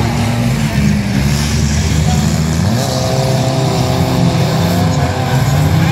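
Engines of several banger racing cars running and revving, loud and continuous, with pitch shifting up and down.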